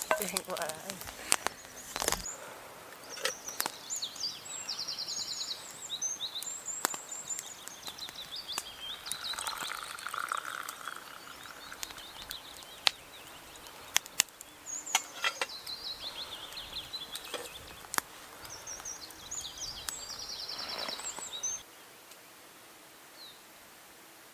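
A small songbird singing two long trilling, chirping phrases, one early and one late, against light outdoor background noise. Scattered sharp clicks and knocks come in between.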